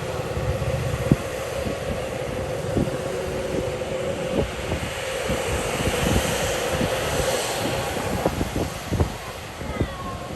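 Jet engines of a Tigerair Taiwan A320neo running with a steady whine, with wind buffeting the microphone in low thumps.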